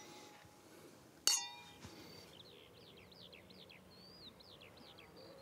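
A single glass clink about a second in, ringing briefly, followed by a small bird chirping a quick run of short down-slurred notes.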